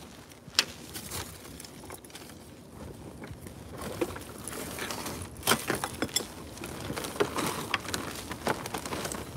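Rummaging through trash in a dumpster: plastic garbage bags rustling and small objects clicking and knocking together, with a few sharp clicks, the loudest about half a second in and about five and a half seconds in, and busier handling from about four seconds on.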